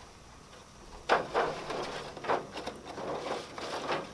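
A utensil stirring and scraping liquid around a disposable aluminium foil pan, working the drippings off the bottom with broth and vinegar to deglaze it. Quiet for about the first second, then a run of irregular scraping and sloshing strokes.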